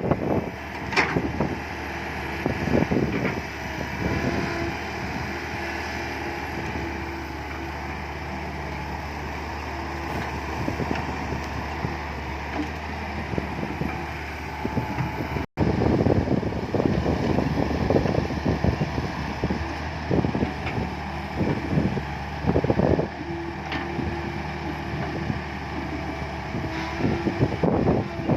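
Komatsu PC120-5 hydraulic excavator's diesel engine running steadily under working load as it digs and loads soil, with wind buffeting the microphone in irregular gusts.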